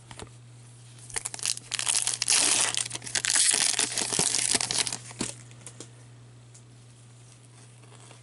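A clear plastic card-pack wrapper being crinkled and torn by gloved hands: a dense crackle of about four seconds that starts about a second in. A steady low hum runs underneath.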